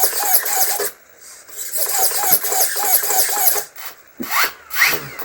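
Small electric motors of a micro RC plane whirring in two runs of quick back-and-forth strokes, about four a second, typical of servos moving the control surfaces just after the receiver is bound. Near the end come two or three short whines that rise sharply in pitch.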